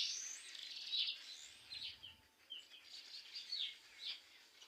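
A colony of bats roosting in a tree, giving many short, high squeaks and chirps, some sliding in pitch, busiest in the first second.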